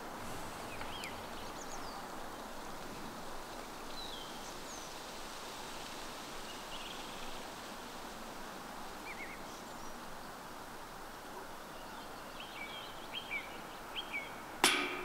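Steady outdoor background noise with a few short, scattered bird chirps. Near the end come a couple of faint clicks, then one loud, sharp knock.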